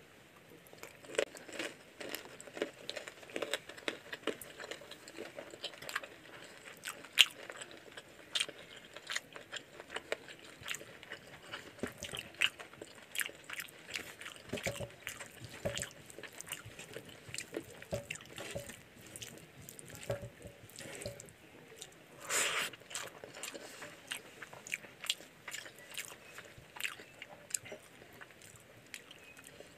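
Close-up eating sounds of chicken curry and rice eaten by hand: irregular wet chewing, lip smacks and the squelch of rice and gravy worked between the fingers. There is one louder, longer burst about twenty-two seconds in.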